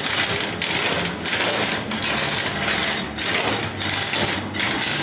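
Harsh rasping noise of a power tool working steel, coming in repeated pulses with short breaks about every two-thirds of a second.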